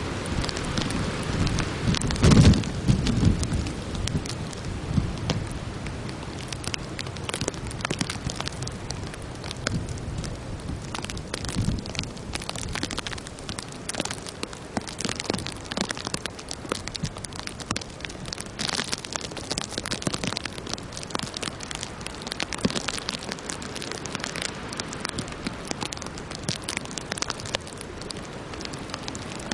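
Sleet and freezing rain pattering steadily on ice-crusted surfaces as many small, dense ticks. A single loud, low thump about two seconds in.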